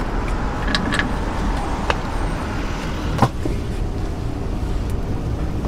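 Steady rumble of street traffic, with a few light clicks and one sharper knock about three seconds in.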